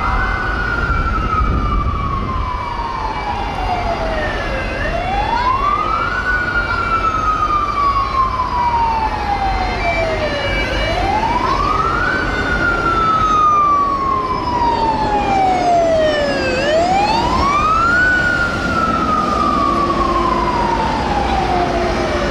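Emergency siren of a British Army DAF LF bomb-disposal truck sounding a slow wail: each cycle rises quickly and falls slowly, about every six seconds. Steady city traffic noise runs underneath.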